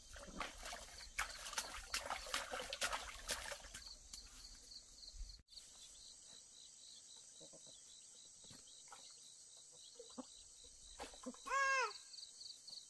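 Insects chirping steadily in a high, evenly repeating pattern, with a scatter of clicks and knocks over a low rumble in the first few seconds. Near the end comes one loud rising-and-falling call.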